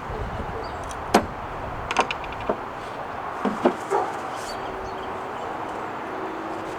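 Metal parts of a cast-iron hand plane clicking and knocking together as it is reassembled: a handful of short sharp clicks, clustered in the first four seconds, over steady background noise.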